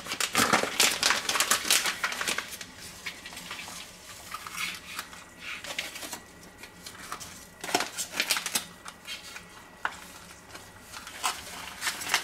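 Vacuum-sealed plastic bags of ribs crinkling and rustling in irregular bursts as they are handled and put into a steel pot of water, with light knocks against the pot.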